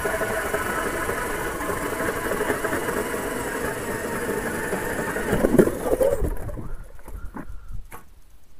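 Milwaukee Fuel cordless drill turning an ice auger through lake ice: a steady motor whine under load with the grind of the auger bit, stopping about six seconds in. A few short knocks follow as the auger is lifted out of the hole.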